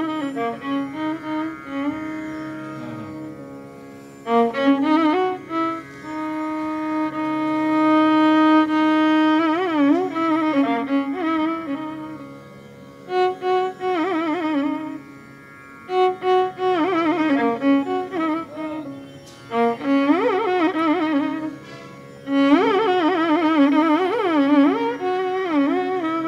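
Instrumental Carnatic-style background music: a bowed string instrument plays long held notes and wavering, sliding ornaments over a steady drone.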